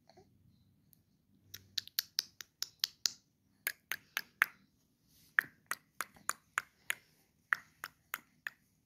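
A long run of sharp clicks, about three or four a second in four short groups, starting about a second and a half in: a person making clicking sounds for a baby.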